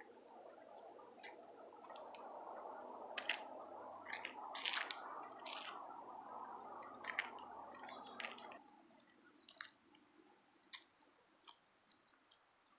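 Footsteps on a leaf-strewn pavement, with light crunches and clicks about once a second. Under them runs a steady background noise that cuts off suddenly about two-thirds of the way through.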